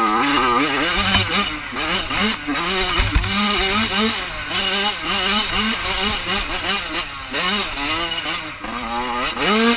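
Yamaha YZ85 two-stroke single-cylinder engine revving up and down over and over as the rider works the throttle on the trail, heard from a helmet camera. A low thump comes about three seconds in.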